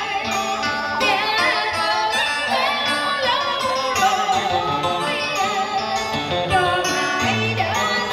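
Live cải lương music: a singer's voice, wavering in pitch, over instrumental accompaniment.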